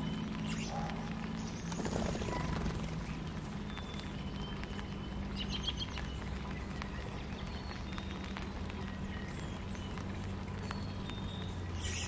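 Outdoor backyard ambience: scattered short, thin bird chirps, with a brief run of notes about halfway through, over a steady low hum.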